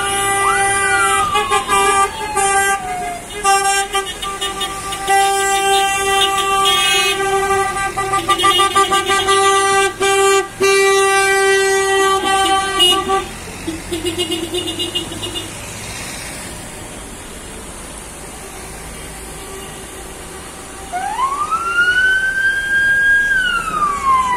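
Car horns honking from a slow-moving vehicle convoy, some held and some pulsed, with a siren wailing up and down at the start. The honking stops about halfway through, and near the end a siren rises, holds and falls again.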